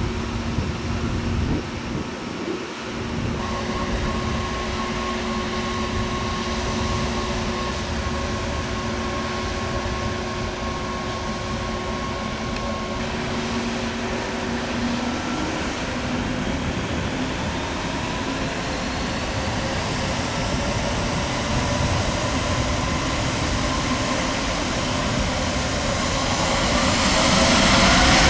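Jet engines of an Airbus A320neo (Pratt & Whitney PW1100G geared turbofans) running with steady whining tones over a rumble. Partway through, a rising whine sets in, and near the end the engines grow sharply louder as they spool up, typical of thrust being applied for takeoff.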